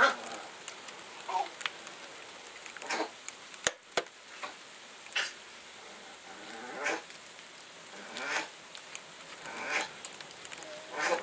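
Ice pellets ticking and popping against the window and sill, a steady patter of small sharp clicks. Short high cries from inside the room come about every second and a half.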